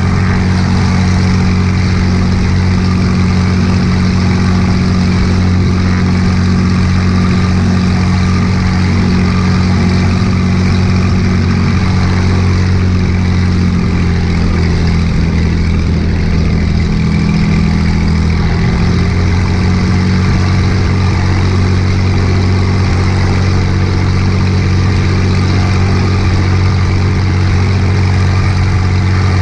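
Cessna's piston engine and propeller running steadily at a constant loud level. A few of the engine's tones shift slightly in pitch about halfway through.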